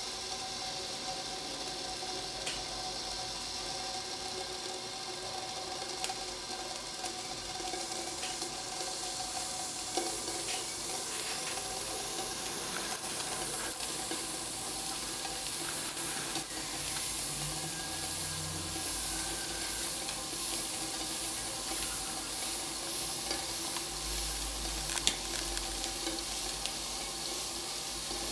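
Steam hissing and sizzling from the nozzles of a homemade tin-can aeolipile (Hero's steam engine) heated over a small flame. The hiss grows louder and, in the second half, pulses about twice a second as the can spins.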